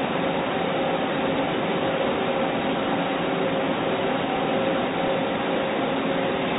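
Steady machine noise, an even hiss with a faint hum under it, unchanged throughout.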